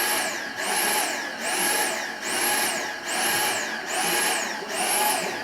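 Vacuum cleaner running, its high whine rising and falling in pitch six times, about once a second.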